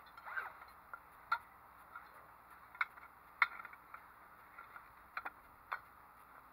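A handful of sharp, irregularly spaced clicks and knocks from the metal tube frame and fittings of an elevated dog cot being handled and fitted together by hand.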